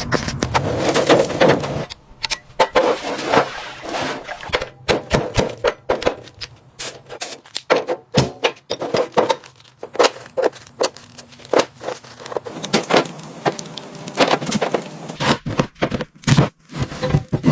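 Irregular clatter of metal on metal: sharp knocks, clinks and short scrapes, like hand tools working on car parts.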